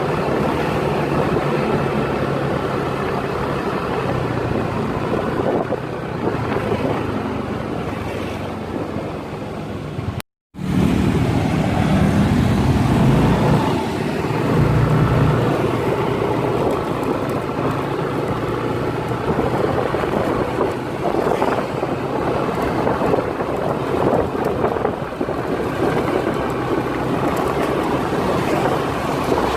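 Steady vehicle engine and road noise. Near the middle it drops out briefly, where the recording cuts, and a louder low engine rumble follows for a few seconds.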